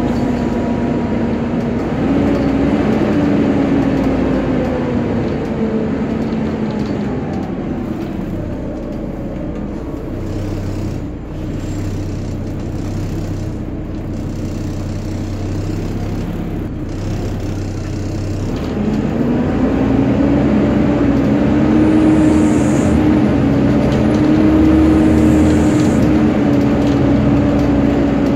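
Volvo B7TL double-decker bus, heard from the upper deck: the engine runs under a whining, hoover-like cooling fan. The whine falls in pitch over the first several seconds and sinks to a lower hum through the middle. It rises again and grows louder in the last third.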